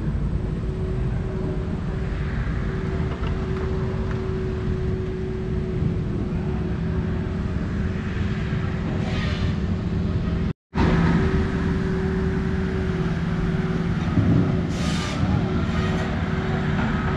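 A steady engine drone with a constant low hum that holds one pitch throughout, cutting out for an instant partway through.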